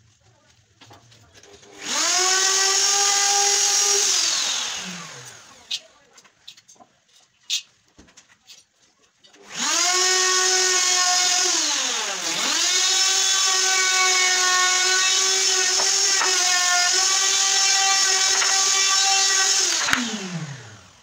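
Hand-held electric drill running in two bursts. It spins up about two seconds in, runs briefly and winds down, then runs again for about ten seconds with its pitch dipping once along the way, and winds down near the end. A few light knocks come between the two runs.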